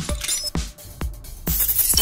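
Electronic intro music with a steady beat of about two strikes a second, and a bright high shimmer near the end.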